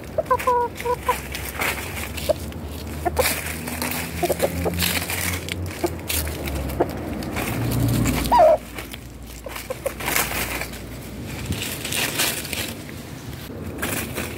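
Chickens clucking now and then, short calls near the start and one louder cluck about eight seconds in, over many small crackling clicks.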